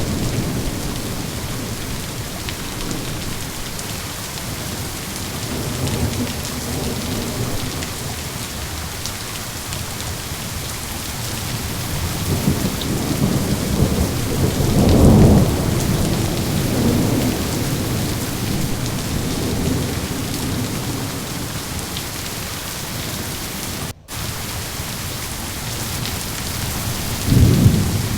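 Steady rain falling with thunder rumbling low and rolling, swelling to louder peals about halfway through and again near the end. The sound cuts out for an instant a few seconds before the end.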